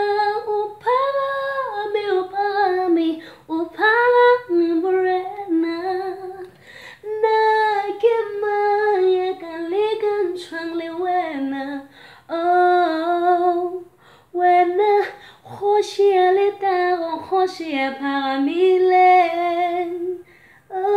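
A woman singing solo and unaccompanied, in long held, sliding phrases with brief breaths between them.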